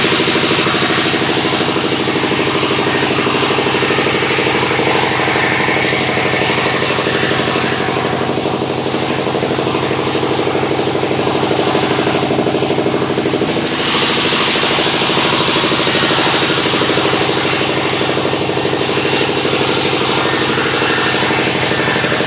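Sawmill's engine running steadily under constant power, with a hissing noise on top that grows louder about two-thirds of the way through and eases off a few seconds later.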